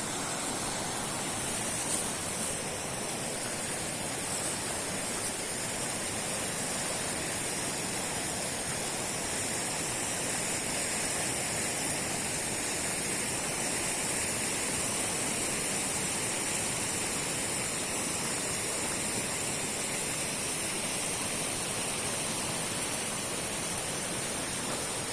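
A fast river rushing, a steady roar of water.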